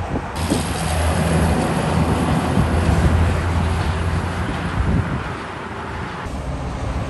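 Heavy truck's diesel engine running as it drives past, a steady low engine note over tyre and traffic noise. The engine note is strongest in the middle seconds and fades a little later. The sound changes abruptly just after the start and again about six seconds in.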